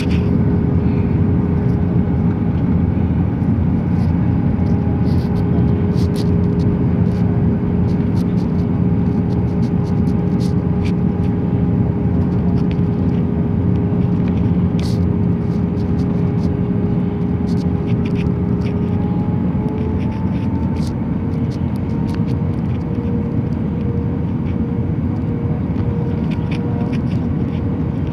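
Airbus A320-family airliner cabin noise on descent: the jet engines and airflow give a steady rumble with a hum of several tones. About two-thirds of the way through, the engine hum rises a step in pitch. A few faint clicks sound here and there.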